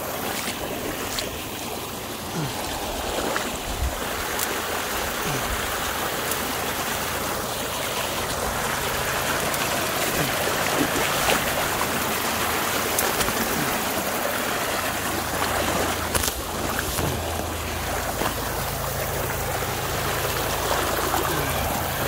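Water rushing steadily out of a lake's outflow pipe and pouring down through the brush below it.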